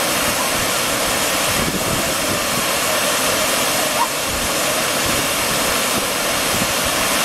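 Steady, loud rush of water falling over a low check-dam cascade, with a brief faint chirp about four seconds in.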